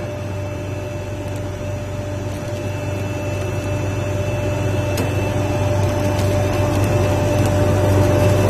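LPG-5 centrifugal spray dryer running: a steady machine hum with a constant whining tone over airflow noise, getting slightly louder toward the end.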